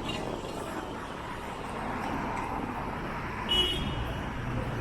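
Town-centre street traffic passing, a steady noise of vehicles with a low rumble building in the last second or so. About three and a half seconds in there is a brief high squeal, the loudest moment.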